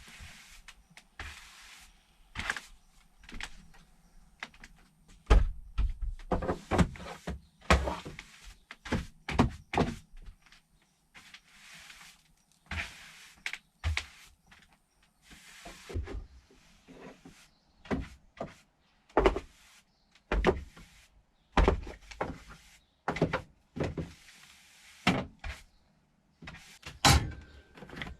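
A run of irregular knocks, thuds and clatters, one every second or two, as things are handled and set down.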